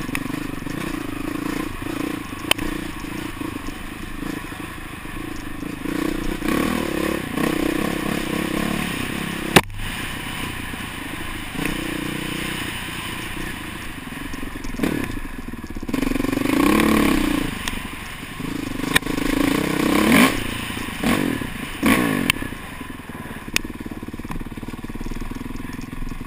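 Dirt bike engine revving up and down as it is ridden over rough trail, heard from the rider's helmet camera, with clattering and knocks from the bumpy ground; one sharp knock about ten seconds in.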